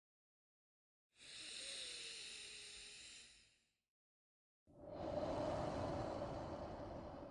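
A person breathing deeply into the microphone, twice: one slow breath about a second in and a longer, fuller one about five seconds in, with silence between them.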